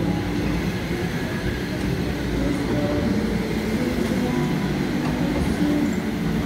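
Go-kart motors running on a track, a steady hum with several tones that rise and fall in pitch as the karts speed up and slow down.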